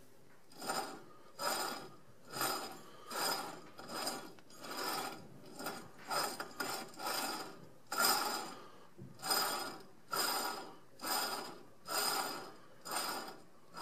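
Worn front wheel bearing of a Mk4 VW Golf TDI, spun by hand in the bare steering knuckle: a gritty grinding racket in over a dozen short bursts, one with each push of the hand. The grinding is the sign of a bad bearing, rusted inside.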